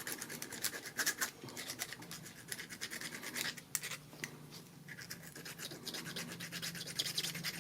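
Small hand file rasping in rapid short strokes on the lock tumblers of a 2002 Honda Civic driver's door lock cylinder, filing down the tumblers that stick out so they sit flat.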